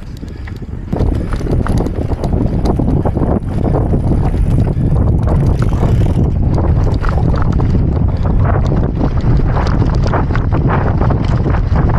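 Wind buffeting the microphone of a camera on a moving mountain bike, with many quick rattles and knocks from the bike jolting over rough trail; it grows louder about a second in.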